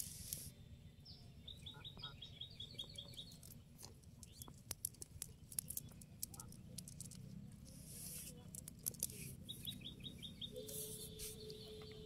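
A bird's rapid trill of short high notes, once about a second in and again near the end. Scattered soft wet taps and slaps come from fish flopping on the wet ground and from the net being handled, over a faint low rumble.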